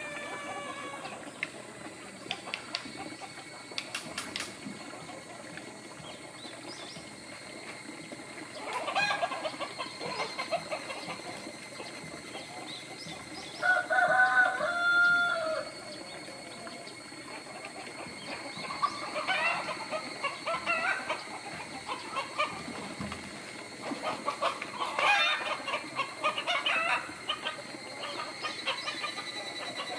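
Chickens clucking and cackling in bursts, with one rooster giving a loud crow of about two seconds near the middle.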